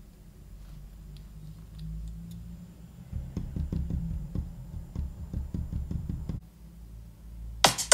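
Fingertip tapping on the sound-reactive light controller board beside its electret microphone, a quick run of sharp taps lasting about three seconds, testing that the circuit reacts to sound. Music starts right at the end.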